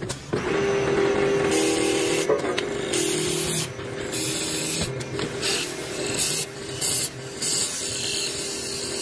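A lathe turns a block of wood while a cutting tool shaves it round, giving repeated uneven bursts of scraping over a steady machine hum.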